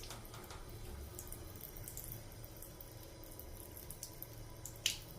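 Water running steadily from a tap, with a short sharp sound near the end.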